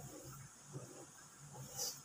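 Faint low bubbling of a thick fish gravy simmering in a wok while a ladle stirs it, with a short splash of gravy falling from the ladle near the end.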